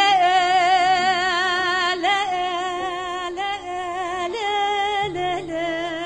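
A woman singing a Kurdish folk song solo. She holds long notes with a wide, even vibrato, sliding and ornamenting between them, a new note about every second or two.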